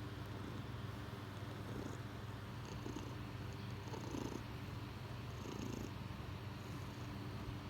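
Domestic cat purring steadily, with two slightly louder swells about four and five and a half seconds in.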